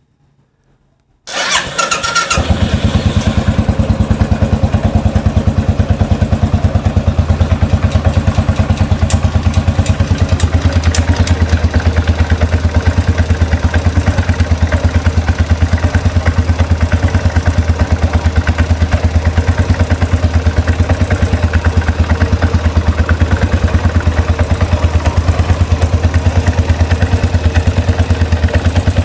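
2013 Royal Enfield Classic 500's single-cylinder engine cranked on the electric starter, catching about two seconds in and settling into a steady, evenly thumping idle. It is its first start after an engine rebuild and makes a couple of clicky noises, which the owner thinks may be because the oil hasn't pumped up straight away.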